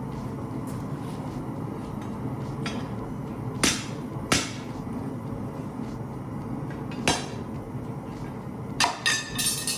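Hammer striking hot rebar on an anvil: a few separate sharp metallic blows, then a quick cluster of ringing strikes near the end, over a steady low rumble.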